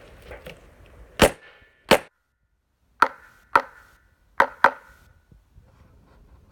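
Six pistol shots, fired roughly in pairs, each a sharp crack with a short ringing tail.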